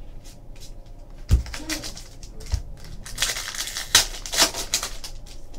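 A foil trading-card pack being torn open, its wrapper crinkling and crackling most densely in the second half. A couple of sharp taps come before it.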